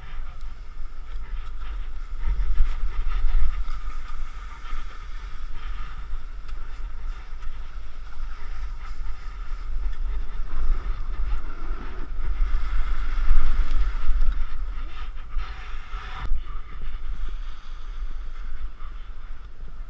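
Wind buffeting a body-worn action camera's microphone during a run down a ski slope: a heavy low rumble that swells louder a few times, over the steady hiss and scrape of the rider sliding on snow.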